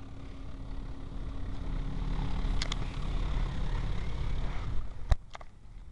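High-pressure prewash water spray from a Ryko SoftGloss Maxx car wash hitting the car, heard from inside the cabin. It swells over a few seconds, then drops off just after a sharp knock about five seconds in.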